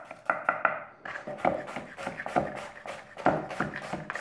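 Chef's knife chopping an onion into fine dice on a cutting board: a quick run of blade knocks, several a second.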